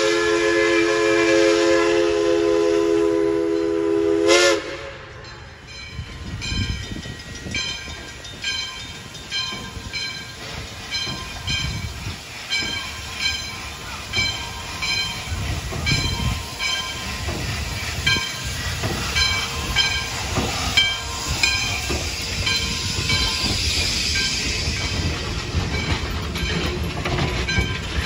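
Steam locomotive 58's Lunkenheimer three-chime whistle sounds one long blast, ending with a brief drop in pitch about four seconds in. The locomotive's bell then rings with an even stroke over exhaust chuffs that grow as the train starts off and its cars roll by.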